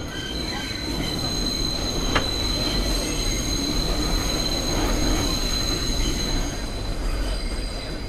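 New York City Subway R142A car running with its wheels squealing: a high, steady screech over the low rumble of the train, fading out about six and a half seconds in. A single sharp click about two seconds in.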